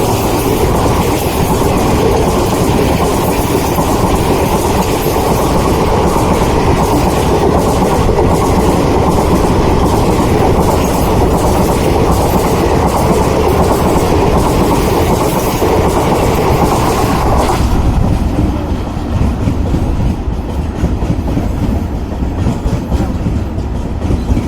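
Express train hauled by a WDP-4D diesel locomotive passing at full speed: a loud, steady rush of rumble with the clickety-clack of wheels over rail joints. About two thirds of the way through the sound suddenly thins and drops, and a lower wheel clatter carries on.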